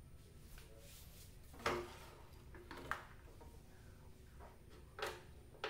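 Handling noises from a CRT television's exposed chassis board and wiring: a few short, separate knocks and clicks, the loudest about two seconds in, with another pair near the end.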